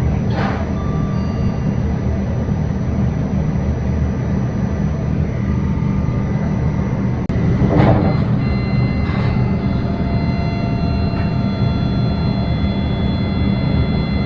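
Shinkansen cab running noise, a steady low rumble, with the digital ATC signal chime sounding over it: brief tones just after the start, and after a cut about eight seconds in, several steady tones together that hold on.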